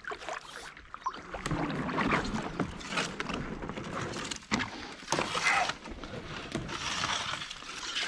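Paddle strokes splashing and dripping as an inflatable kayak moves through still water, in irregular surges, with a few light knocks.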